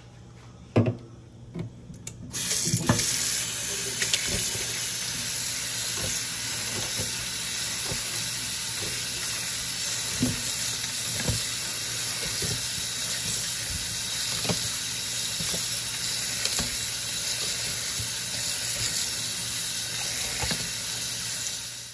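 Kitchen tap running onto hearts-of-palm noodles in a plastic colander in a stainless steel sink. The water comes on about two and a half seconds in, after a few knocks, and then runs steadily, with small clicks and splashes as hands toss the noodles under the stream.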